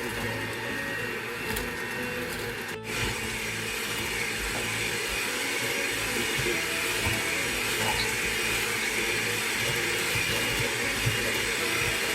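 Electric mixer running steadily as it creams butter, sugar and eggs into batter, with a momentary break a little under three seconds in.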